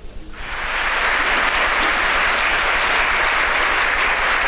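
A large audience applauding, swelling in over the first second and then holding steady.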